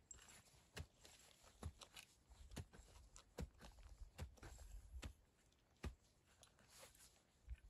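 Faint, evenly spaced soft knocks, a little more than one a second, like steps or blows on wood.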